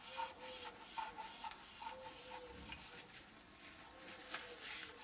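Paper towel rubbed back and forth along a dirt bike's steering stem, wiping off old grease and rust loosened with WD-40: a faint, uneven series of rubbing strokes.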